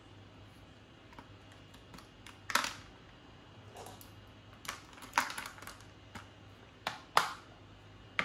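Intermittent typing on a computer keyboard: scattered key clicks, mostly light, with a few louder strokes, over a low steady hum.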